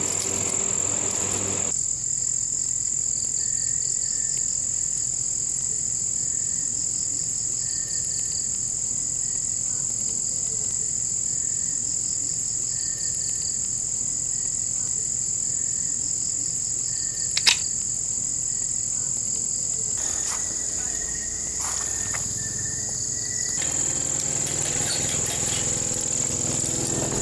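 Night insects, crickets, trilling steadily in a continuous high pitch, with a fainter pulsing chirp beneath it. A single sharp click comes about 17 seconds in.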